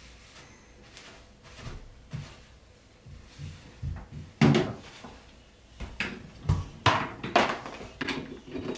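Handling noises: a plastic hair dryer is knocked and shifted about on a counter, giving a series of sharp knocks and clatters in the second half, with its plug pushed into a wall socket near the end.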